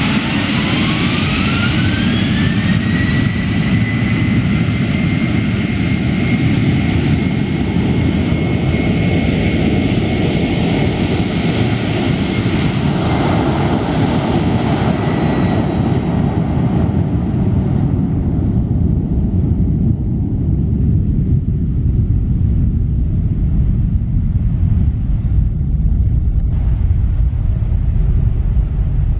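Boeing 737 jet engines at takeoff power: a whine rises over the first couple of seconds and then holds steady over a loud, heavy rumble. After about sixteen seconds the whine drops away and a low rumble remains as the airliner rolls off.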